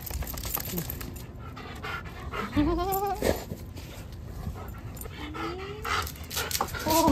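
A dog panting rapidly, with two short rising whines, the second about five seconds in.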